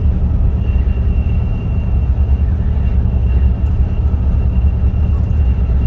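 Greyhound coach's diesel engine running with a steady low rumble and a faint steady high whine.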